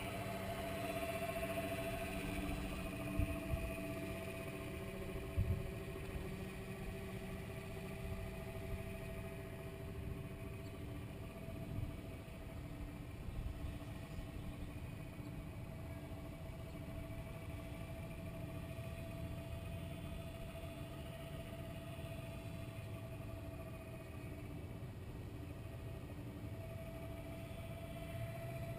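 Distant electric RC aircraft motor and propeller droning steadily at high throttle, a faint held tone that drifts slightly in pitch. Under it there is a low rumble with a couple of thumps about three and five seconds in.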